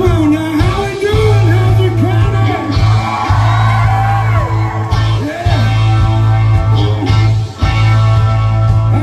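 Live rock band playing: a singer's voice over electric guitar, bass guitar and drums, amplified through the stage speakers.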